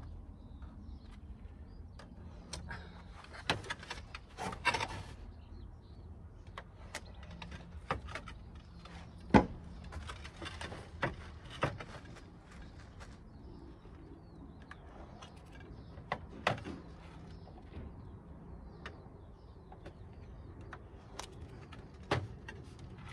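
Scattered taps, knocks and clicks of a level and hand tools against lead flashing and roof tiles as the step flashings are marked out, the loudest knock about nine seconds in.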